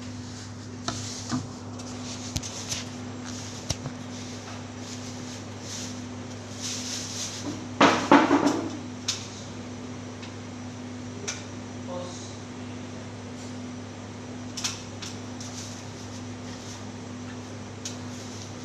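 A steady low hum under scattered light clicks, knocks and clatter from hand work on a wall-mounted appliance being serviced, with a louder scraping, rattling burst about eight seconds in.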